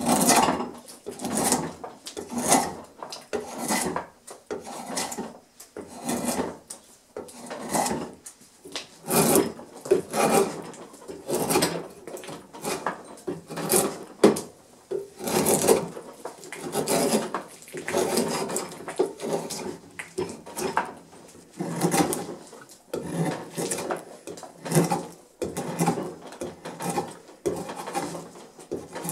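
A drawknife shaving the bark off a split bitternut hickory log in repeated pulling strokes, about one a second, each a rasping scrape of steel through bark and wood.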